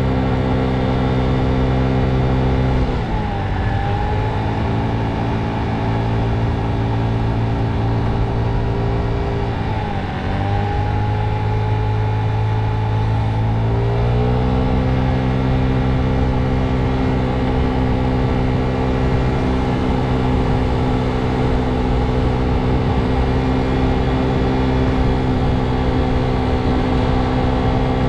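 Motor scooter engine running steadily while riding, easing off about three seconds in and again around ten seconds, then picking back up to a steady cruise around fourteen seconds.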